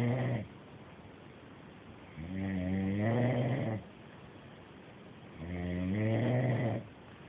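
Very loud rhythmic snoring: the tail of one snore at the start, then two full snores about a second and a half long, each rising slightly in pitch, roughly three seconds apart, with quiet breathing between.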